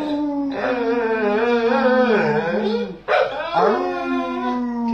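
A dog 'talking': two long, drawn-out, wavering vocalisations, the first about three seconds long and the second starting after a short break about three seconds in, the kind of sustained moaning complaint some dogs make.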